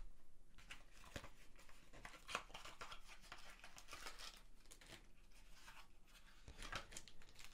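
Faint rustling of plastic bags and light handling clicks as accessories are lifted out of a box, with one slightly louder tap about two seconds in.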